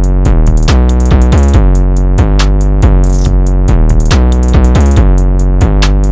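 Loud electronic music with a drum-machine beat: deep sustained bass notes under fast, sharp percussion ticks.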